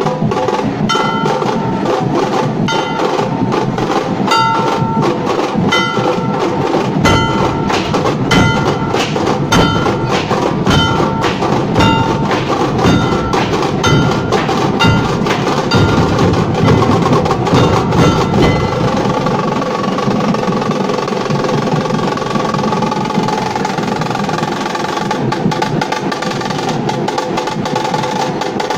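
Nashik dhol ensemble drumming loudly and continuously: deep dhol beats under rapid sharp rolls. For about the first two-thirds, a ringing metallic stroke sounds a little more than once a second.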